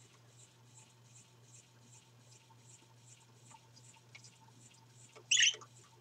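A budgerigar (parakeet) gives one short, high chirp about five seconds in, over a faint steady hum.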